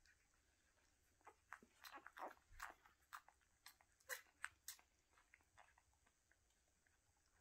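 Whippet mother licking her newborn puppies: a scatter of faint, short wet clicks and smacks, busiest a little past the middle, then dying away.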